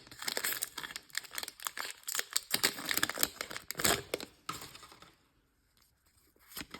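Foil wrapper of a Pokémon card booster pack crinkling and tearing as it is opened by hand, stopping about five seconds in. One short tap comes near the end.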